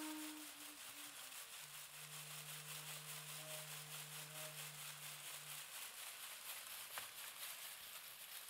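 Soft, continuous rustling or rubbing noise with held musical notes over it. One higher note fades out about a second in, and a lower note is held for about four seconds. There is one short click near the end.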